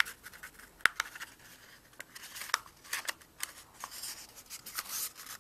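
Paper being rolled into a tube and pressed together by hand: light rustling and crinkling, broken by scattered sharp ticks and taps.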